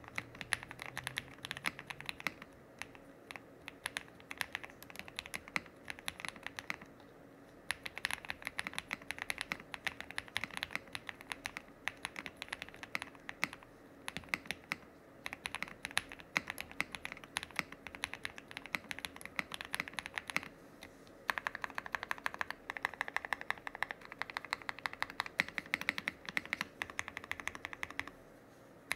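Typing on a KBDfans Tiger80 Lite mechanical keyboard fitted with lubed KTT Chalk linear switches: a dense, continuous run of keystrokes, broken by a few short pauses.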